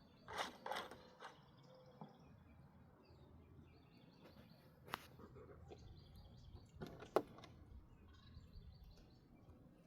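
Faint bird chirping, with a few short louder sounds about half a second in, near five seconds and just after seven seconds.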